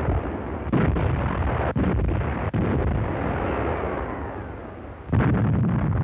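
Heavy artillery firing: two loud blasts, one about a second in and one near the end, each followed by a long rumbling fade.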